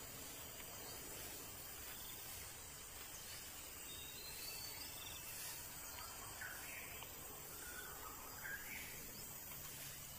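Outdoor ambience of steady insect buzzing, with a few faint short chirps between about six and nine seconds in.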